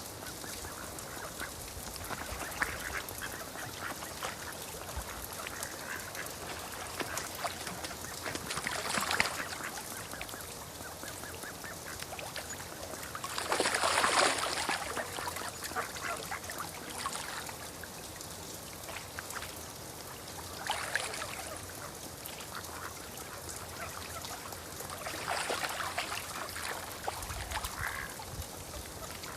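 Steady rain with bird calls rising over it several times, the loudest about halfway through.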